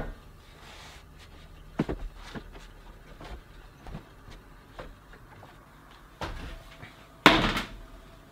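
Pizza-toast slices set down one after another on a metal baking tray: a series of soft knocks and taps, with a louder scraping clatter near the end.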